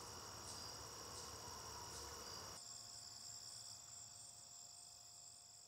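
Faint crickets chirping in a steady high-pitched trill, with the lower background rumble dropping away about halfway through and the sound fading out near the end.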